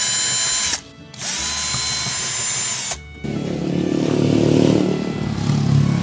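Cordless drill-driver backing out a screw on a refrigerator's compressor bracket, in two short runs, a brief one and then one of about a second and a half, its motor whine rising as each run starts. Background music then takes over for the second half.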